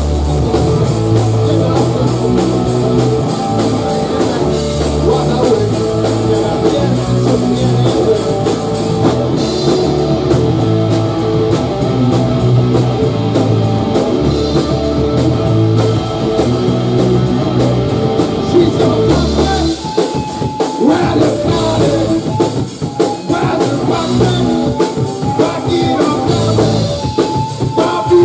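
Live rock band playing: two electric guitars and a drum kit, loud and driving. About twenty seconds in it turns choppier, with short breaks between hits.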